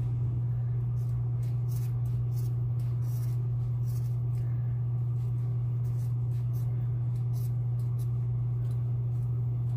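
Scissors snipping through thick braided hair in a series of short, crisp cuts at uneven intervals, over a steady low hum.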